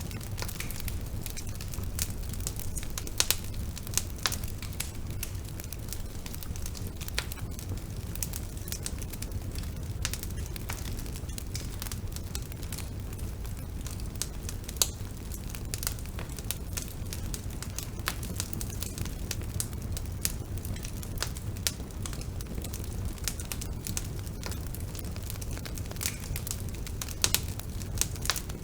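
Bonfire burning, with sharp irregular crackles and pops of burning wood over a steady low rumble of flame.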